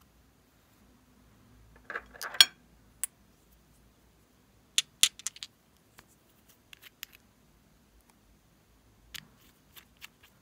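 Sharp plastic clicks and taps from small cosmetic containers being handled, a lip balm tube and a small glass bottle with a plastic cap. The loudest is a quick run of clicks about two seconds in, then another cluster around five seconds and scattered faint ticks after.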